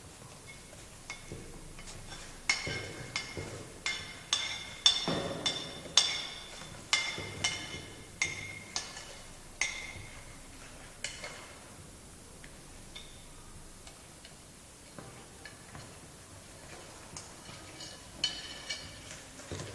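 A spoon clinking and tapping against dishes as egg yolks are scraped from a plate and stirred into a bowl of sweet cheese mixture for pască. The sharp, ringing clinks come thick and fast from about two seconds in to about ten seconds, then fall to a few scattered taps, with a short flurry near the end.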